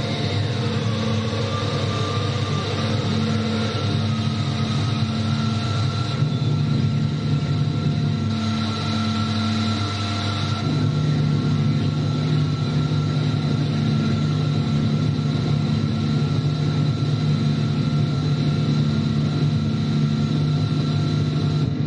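Live electronic music from hardware synthesizers: a dense, steady drone of several held tones over a heavy low hum, with a faintly pulsing mid tone. The low drone swells about halfway through.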